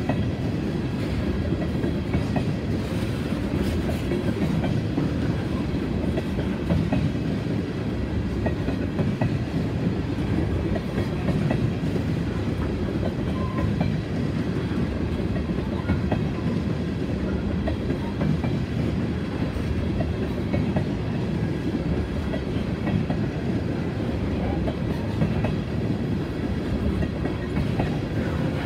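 Tank cars of a freight oil train rolling past: a steady rumble of steel wheels on rail, with frequent clicks as the wheels cross rail joints.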